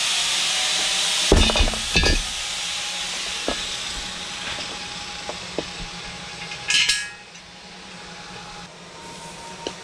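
Bolts and lock nuts being handled on a bellhousing: a couple of knocks, scattered light metallic clinks, and a short rattle about seven seconds in. Under them runs a steady hiss of shop noise that slowly fades.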